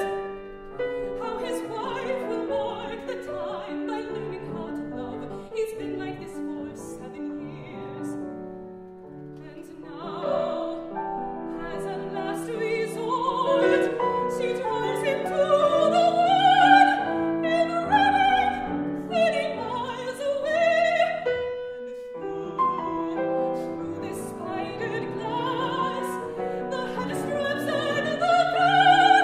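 Mezzo-soprano singing in classical operatic style with grand piano accompaniment. The music thins out for a couple of seconds about a third of the way in and breaks off very briefly about three-quarters through.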